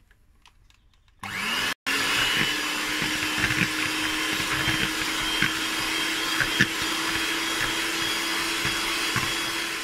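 Electric hand mixer switched on about a second in, its motor hum rising as it spins up, then running steadily as its beaters whip cold liquid cream in a plastic bowl, with a few light clicks along the way.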